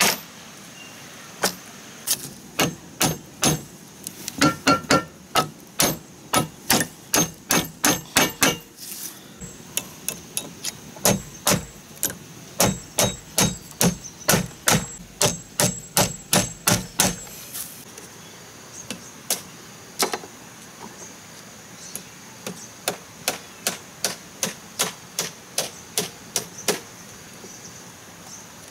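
Hammer driving nails through woven bamboo strips into a bamboo-pole frame: runs of sharp strikes about two to three a second with short pauses, the strikes turning lighter and sparser after about 18 seconds. Insects drone steadily underneath.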